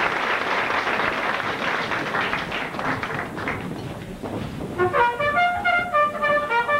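Audience clapping for about the first four seconds, fading, then brass-led band music starts about five seconds in: a string of clear brass notes stepping up and down in pitch, the introduction to a show tune.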